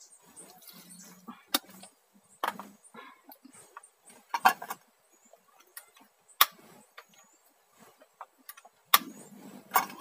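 Metal camping cookpot and portable gas stove being handled: several sharp clinks and knocks spread through, with light rustling between.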